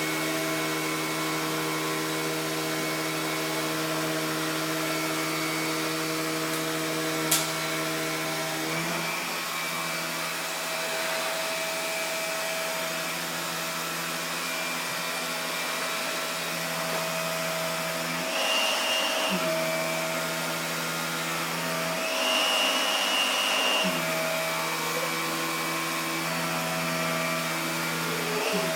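Vacuum cleaner running steadily with a humming motor note that shifts slightly about nine seconds in. There is a sharp click about seven seconds in, and twice in the second half the sound briefly goes louder and brighter.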